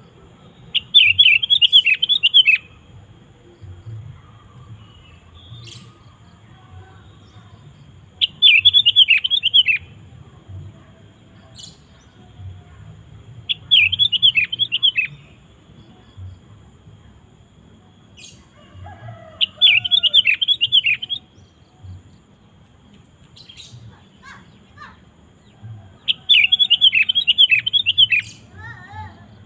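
Sooty-headed bulbul singing: five loud, alike bursts of quick bubbling notes, each about two seconds long, repeated every five to seven seconds.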